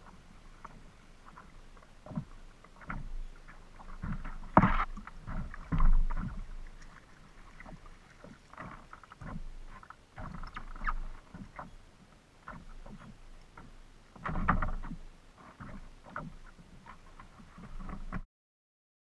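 Choppy water slapping against the plastic hull of a Hurricane Skimmer 140 fishing kayak, with irregular knocks and splashes as a bass is brought alongside and netted. The loudest knocks and splashes come about four and a half seconds in, about six seconds in and about fourteen and a half seconds in, and the sound cuts off suddenly near the end.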